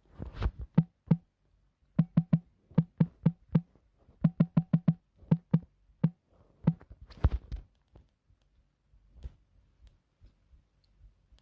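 Short electronic drum hits, each a pitched low thump with a sharp top, played in a loose, uneven rhythm that stops about three quarters of the way in, leaving a few faint hits.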